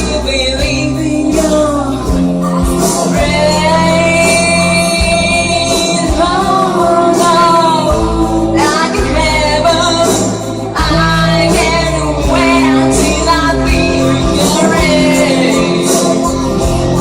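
Music: a song with a voice singing long held and gliding notes over an instrumental backing with bass and percussion.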